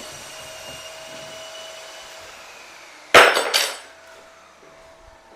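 A sudden clatter of hard objects about three seconds in: two or three quick knocks within less than a second, over a faint steady hum.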